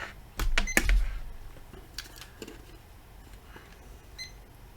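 Hard knocks and clatter of things being handled on the workbench, loudest in the first second, with two short high electronic beeps from a digital multimeter, one under a second in and one near the end.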